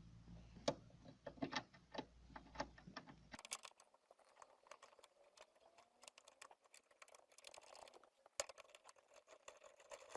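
Faint, irregular clicks and taps of metal tools and car parts being handled while the seat belt retractor mechanism is bolted back into place.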